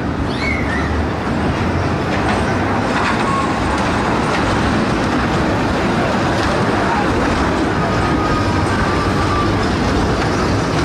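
A small children's ride-on train, a reindeer-drawn Santa sleigh with carriages, rolling past close by on its narrow track with a steady low rumble.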